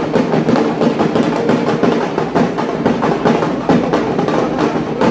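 Procession drums, including a waist-slung dhol, beating a steady rhythm amid a dense crowd's din.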